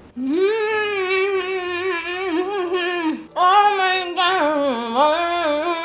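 A woman humming a long, wavering "mmm" with her mouth full while chewing, savouring the bite. A second long hum follows about three and a half seconds in.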